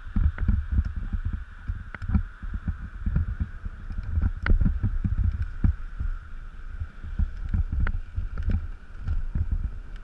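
Wind buffeting an action camera's microphone on a moving bicycle: an uneven low rumble that swells and fades, over a steady higher hum, with frequent sharp knocks and rattles as the bike rides over the road.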